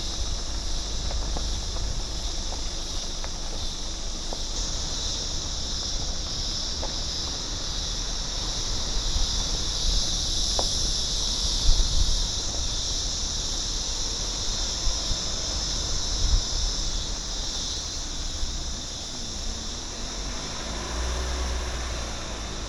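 Insects buzzing in a steady, high, shrill chorus over a low rumble.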